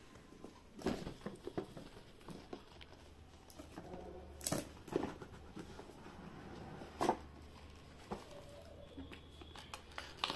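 Hands handling and opening an action camera's cardboard box: paper and card rustling, with a few sharp clicks and taps, the loudest about four and a half and seven seconds in.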